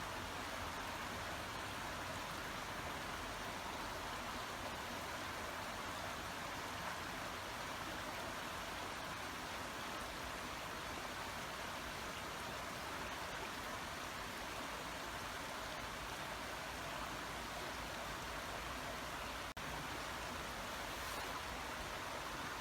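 Babbling brook: water running and burbling steadily, with a split-second break in the sound about three seconds before the end.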